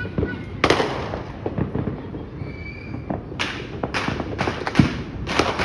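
Fireworks and firecrackers going off: a run of sharp bangs and pops, coming closer together in the second half.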